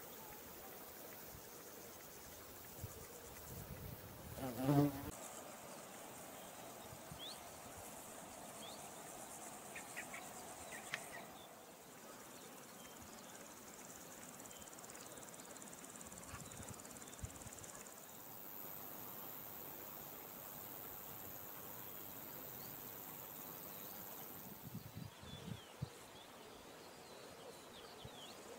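A bumblebee buzzing close by, loudest in a brief pass about five seconds in. Faint steady high-pitched chirring of meadow insects runs underneath.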